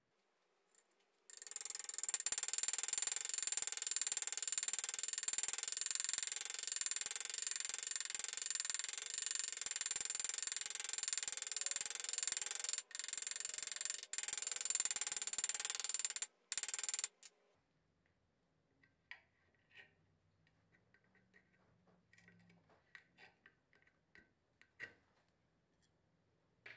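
A small high-speed power tool running steadily with a strong high-pitched whine for about fifteen seconds, cutting out briefly twice before it stops. A short final burst follows, then only a few faint light taps and clicks.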